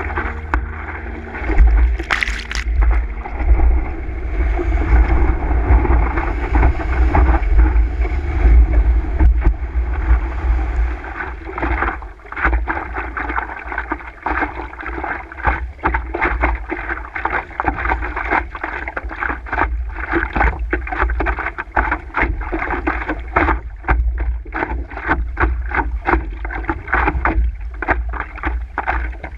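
Water lapping and splashing against the nose of a stand-up paddleboard as it is paddled, turning into a quick run of short slaps in the second half, under a steady low rumble of wind on the microphone.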